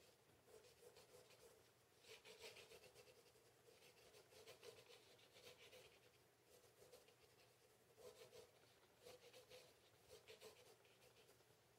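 Staedtler HB graphite pencil sketching on paper, faint scratching in runs of quick light strokes with short pauses between them.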